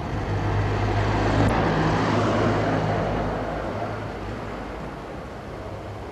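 Engine noise: a steady low hum under a rushing noise that is loudest about two seconds in and then gradually fades.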